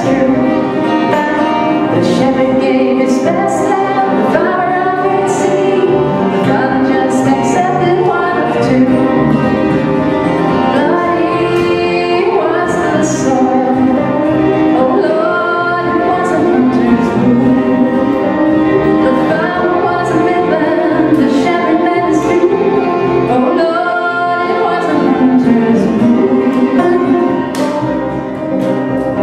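A woman singing a folk song live, backed by an acoustic band of acoustic guitar, fiddle, double bass and banjo.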